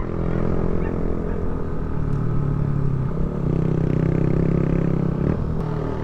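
Yamaha motor scooter's engine running steadily at low road speed while being ridden, with a low rumble of wind on the microphone. The engine note grows stronger about two seconds in and eases off near the end.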